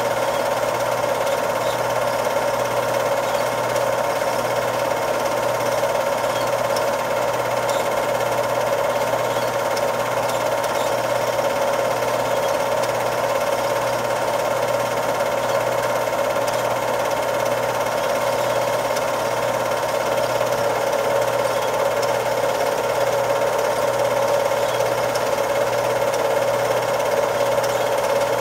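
Cine film projector running steadily, a continuous mechanical drone that does not change.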